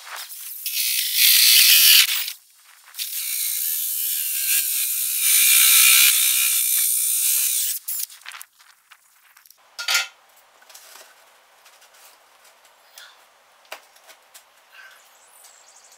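Cordless drill turning a 64 mm hole saw through house siding, cutting in two runs: a short one of about two seconds, a brief pause, then a longer one of about five seconds. After that come only light clicks and handling knocks.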